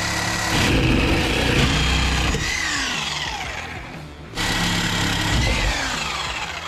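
Corded reciprocating saw cutting through the steel axle mounts under a camper frame. Its pitch holds and then slides downward as the blade bites. The sound breaks off abruptly about four seconds in and then starts again.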